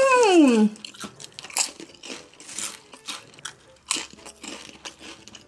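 Close-miked crunching and chewing of potato chips, a rapid, irregular series of crisp cracks. It opens with a short closed-mouth hum that glides up and then down in pitch.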